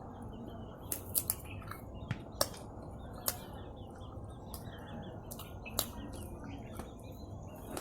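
Close-up eating sounds: chewing of crispy fried food, with sharp crunchy clicks coming at uneven moments over a steady low background hum.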